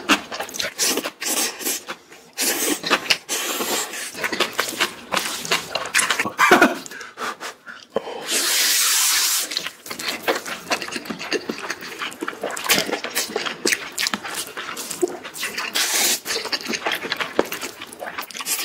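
A person slurping and chewing ramen noodles, with many short wet mouth sounds and one long, steady slurp about eight seconds in.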